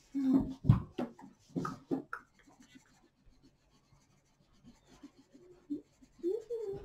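Coloured pencil scratching on paper in quick strokes. The strokes come thick and strong in the first two seconds, then lighter and sparser.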